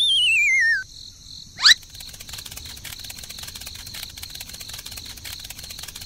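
A cartoon sound effect: a wavering whistle sliding down in pitch for under a second, a dizzy effect. A quick rising zip about 1.7 seconds in, then a steady background of crickets chirping.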